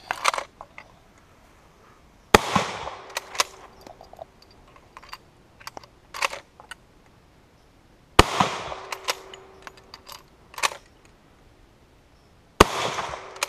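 Three shots from a Lebel Model 1886/93 bolt-action rifle firing 8x50R Lebel, the first about two seconds in and then about six and four seconds apart, each with a short echo. Between the shots come lighter metallic clicks and clacks of the bolt being worked.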